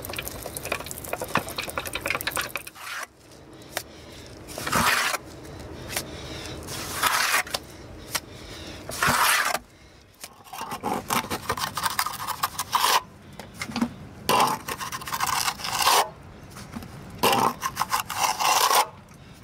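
Steel trowel scraping lime mortar from a bucket and pressing and smoothing it into a hole at the foot of a plastered wall, in repeated short scrapes. In the first few seconds a hand pump sprayer hisses as it wets the hole.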